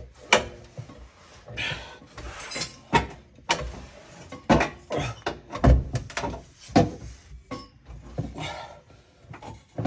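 Irregular knocks, clunks and short scrapes of a transmission being manoeuvred and pushed into place against an RB26 engine.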